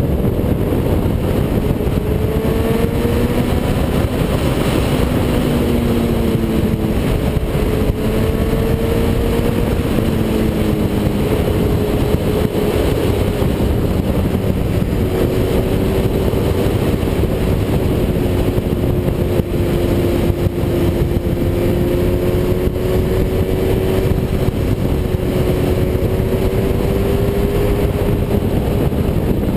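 Wind rush on a bike-mounted camera at road speed, with the engine note of a Honda CBR1100XX's inline-four cruising underneath, its pitch drifting gently up and down with the throttle.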